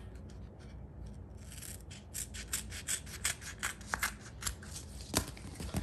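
Scissors cutting through self-adhesive leather repair patch tape and its paper backing: a run of quick snips, about four a second, starting about a second and a half in. The last snip, about five seconds in, is the loudest.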